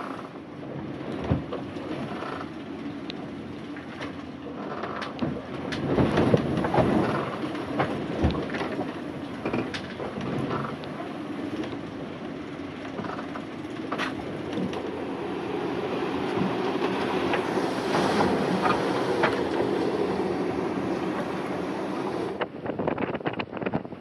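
Wind and sea noise aboard a sailboat in rough weather, with frequent knocks and rattles of gear. Near the end it turns to gusty wind buffeting the microphone on deck.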